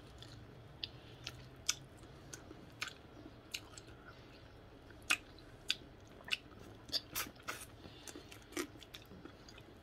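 Close-up eating sounds of a person biting and chewing meat off a chicken piece on the bone: quiet, irregular mouth clicks and smacks, a few a second.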